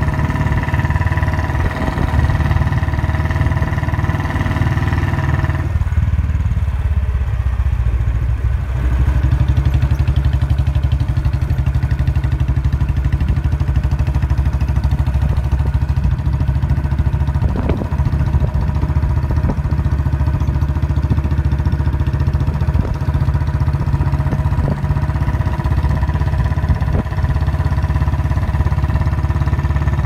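Royal Enfield Bullet Standard 350's single-cylinder engine running steadily under way, its low exhaust note the loudest thing throughout.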